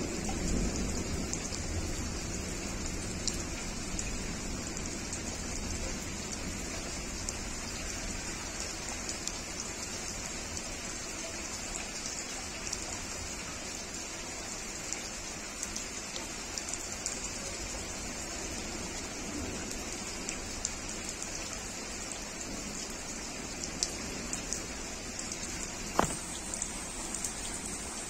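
Heavy rain falling on garden leaves, puddled paving stones and a water-filled plant pot: a steady hiss with many small drop splashes. A low thunder rumble fades in the first seconds, and a single sharp click comes near the end.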